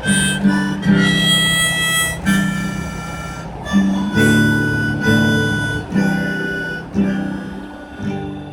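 Harmonica playing held notes over strummed acoustic guitar chords. A last chord about eight seconds in rings and fades out as the piece ends.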